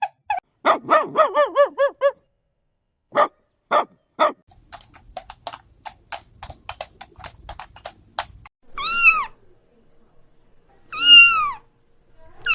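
A domestic cat meows twice, two long arching meows a couple of seconds apart near the end, the loudest sounds here. Before them come a quick run of short animal calls and then a string of short chirps or clicks.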